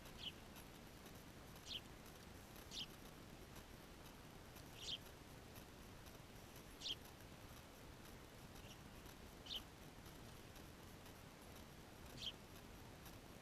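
Small birds chirping: about eight short, high chirps, each dropping slightly in pitch, at irregular intervals a second or two apart over a faint steady hiss.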